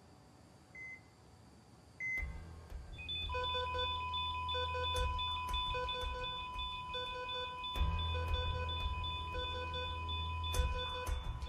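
Bedside patient monitor: the regular heartbeat beeps, about one a second, run for the first two seconds. A deep low drone then comes in, and about three seconds in a continuous flatline tone sounds together with a repeating triple-beep alarm. This is the monitor's alarm for a patient in cardiac arrest, with no blood pressure or pulse.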